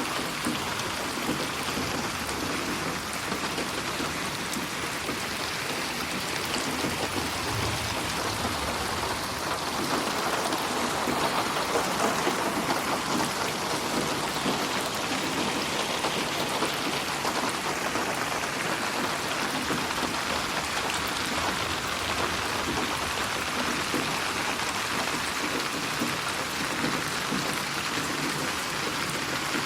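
Steady rain falling on a surface, a dense patter of drops, swelling slightly in loudness about a third of the way through.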